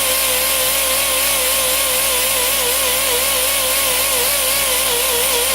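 High-speed die grinder fitted with sandpaper, running against the beam of a steel Chevy connecting rod to polish it. It gives a steady high whine whose pitch wavers slightly as the tool is worked along the metal.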